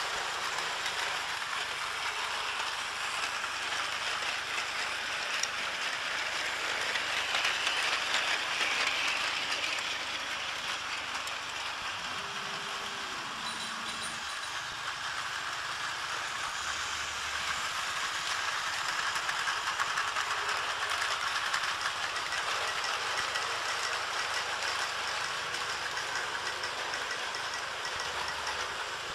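Battery-powered Plarail toy trains running on plastic track: a steady whirring and rattling of small motor gearboxes and wheels, swelling a little louder about a third of the way in.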